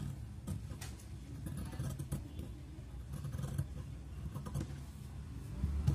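Scissors cutting through cotton blouse fabric: a scattering of short, faint snips and clicks over a steady low rumble.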